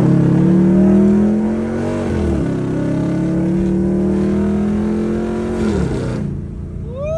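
Cammed 5.7 Hemi V8 in a Dodge Charger accelerating hard from the cabin, with the owner's noted exhaust leak. The revs climb, dip at an upshift about two seconds in, climb again for several seconds, then fall off near the end.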